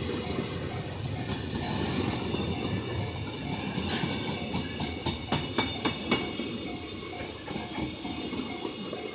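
Freight train wagons rolling past, their wheels clicking over rail joints, with a cluster of sharp clicks about four to six seconds in. A level-crossing bell rings steadily behind the train noise.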